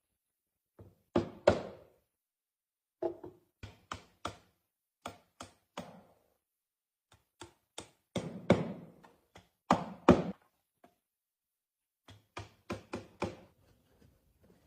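Irregular knocks and taps on wood, some single and some in quick runs of two to four. The loudest come about a second and a half in and around eight and ten seconds in.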